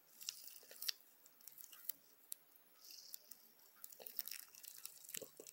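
Faint scattered clicks and light rubbing as fingers grip and turn a coin held edge-on.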